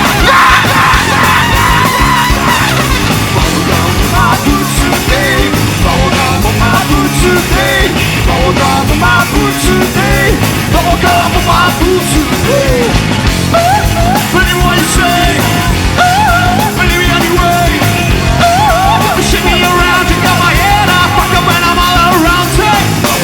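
Loud live rock band with a shouted lead vocal over drums and distorted guitars at a steady driving beat.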